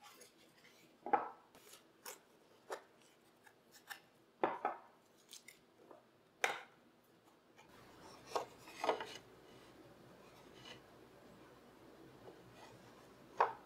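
A taped-up walnut wood box being handled and its masking tape pulled off: scattered knocks and taps of wood on wood, some with a short scraping rasp. After about eight seconds a faint steady hum sets in under a few more knocks.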